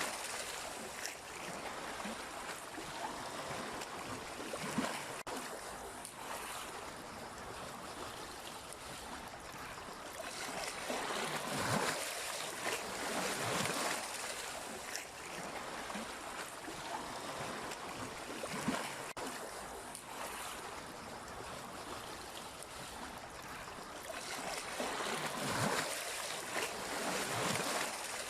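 Sea waves washing onto the shore: a continuous rush of surf that swells and falls back every few seconds as each wave comes in.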